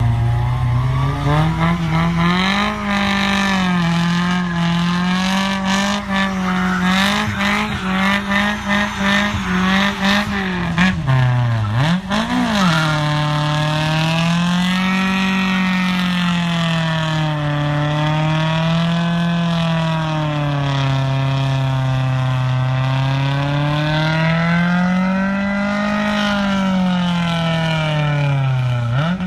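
Honda Civic's four-cylinder engine held at high revs in a stationary burnout, the tyres spinning and smoking against a tow strap. For the first ten seconds or so the revs are choppy and stuttering. After a brief dip and recovery, they rise and fall in slow swells every couple of seconds.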